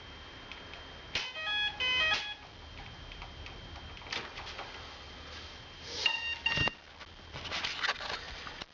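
The RC plane's electric motor, driven by its speed controller, beeps out a short startup tune of stepping notes when the flight battery is connected, about a second in. Another short pair of beeps follows about six seconds in, with small handling clicks near the end.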